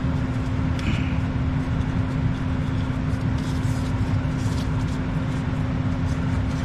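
Gas furnace blower running steadily, a low rumble with a constant hum, as the furnace goes through its shutdown before the fan kicks off.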